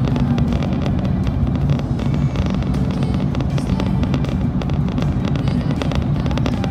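Steady drone of a car's engine and tyres heard from inside the moving car, with music playing over it.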